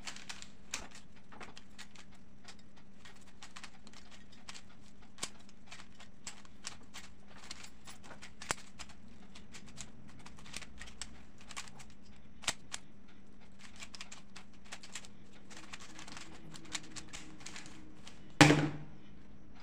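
3x3 puzzle cube being turned quickly by hand in a speedsolve: a rapid, irregular stream of light plastic clicks as the layers snap round. Near the end there is one much louder thump.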